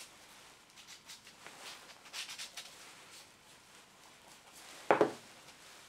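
Faint rubbing and scratching of a gloved fingertip working flux onto a copper pipe, with one short, louder sound about five seconds in.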